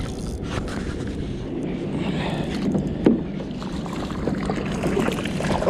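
Wind rumbling on the microphone with water splashing at a kayak's side, and a sharp knock about three seconds in.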